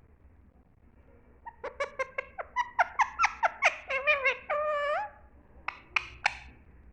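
Pet parrot calling: a quick run of short high chirps, about five a second, starting about one and a half seconds in and ending in a longer wavering note, then three sharp calls near the end.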